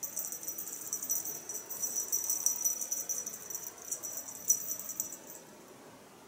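A cat's collar jingling rapidly and thinly as the cat scratches at its neck with a hind leg, with one louder jingle about four and a half seconds in; the jingling stops a little after five seconds.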